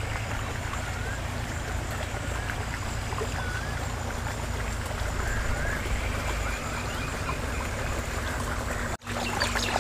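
Outdoor ambience: a steady rumble of wind on the microphone, with a few brief warbling calls from small animals scattered through it. The sound drops out for an instant near the end.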